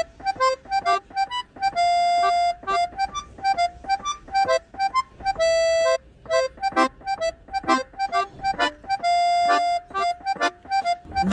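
Background music: a bouncy tune of short, quick notes, broken by a few longer held notes.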